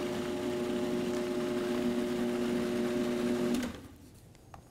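Countertop food processor motor running steadily while pureeing hummus, then switched off and going quiet about three-quarters of the way through.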